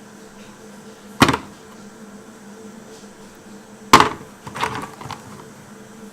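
Sharp clacks from a coffee machine being handled: a loud knock about a second in, another about four seconds in, then a few lighter knocks, over a steady faint hum.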